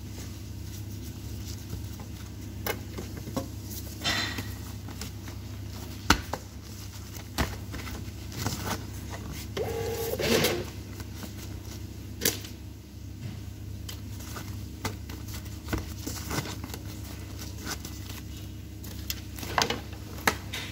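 Restaurant kitchen work sounds: a steady low hum of kitchen equipment with scattered clicks, knocks and clatter of utensils and containers, and a short pitched sound about halfway through.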